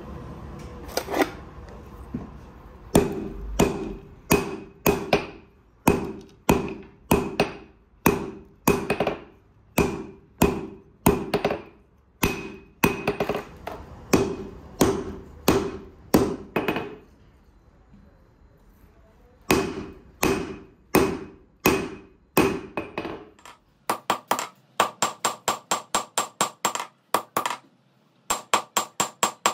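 Hand hammer forging a red-hot steel knife blade on an anvil: sharp ringing strikes about two a second, a pause of a couple of seconds around the middle, then quicker strikes, about four a second, near the end.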